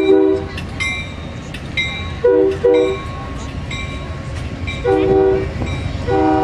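Amtrak passenger train rolling past with a steady rumble of wheels on the rails. A multi-note train horn chord sounds in several blasts: one at the start, two short ones about two and a half seconds in, a longer one about five seconds in and another starting near the end. A bell rings steadily about every half second.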